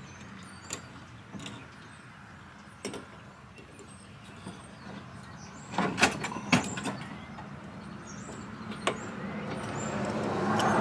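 A few sharp clinks and knocks from metal parts of a small tow-behind broadcast seed spreader being fitted by hand, loudest in a quick cluster about six seconds in. Birds chirp, and a vehicle's sound swells up near the end.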